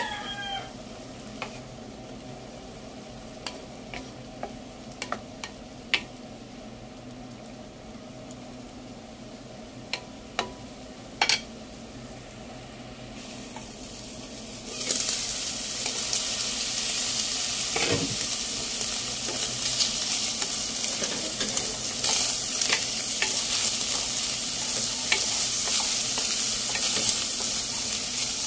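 Pork cubes cooking in a wok: at first a low simmer with scattered sharp pops, then about halfway in a sudden, loud, steady sizzle as the pork fries in its rendered fat while a wooden spatula stirs it.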